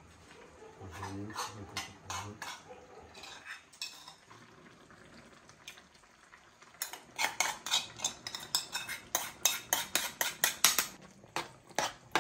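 Metal spoon clinking and scraping against an aluminium pan while a bubbling tomato mixture is stirred, with a small metal bowl scraped out over the pan. About seven seconds in, a quick run of clinks, several a second, lasts some four seconds.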